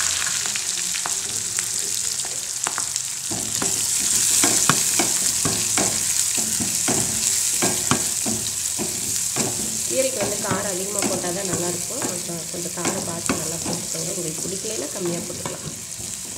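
Sliced shallots and green chillies frying in hot oil with cumin and coriander seeds, sizzling steadily while a wooden spatula stirs them, scraping and tapping against the pan. The sizzle slowly dies down as they sauté.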